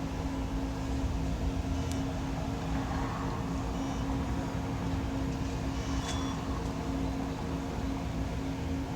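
Steady low hum with a few short electronic beeps from the pizza vending machine, about two, four and six seconds in, as the order is paid for.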